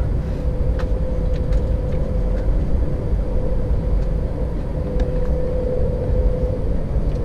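Airbus A320 cabin noise while taxiing: the jet engines at idle give a steady low rumble with a steady hum over it, and there are a few faint clicks.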